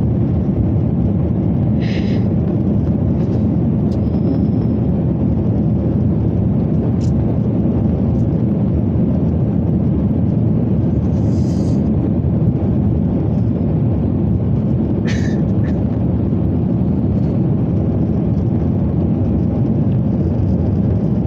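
Airliner cabin noise during the climb after takeoff: the jet engines and rushing air make a steady low rumble inside the cabin, with a few faint brief ticks.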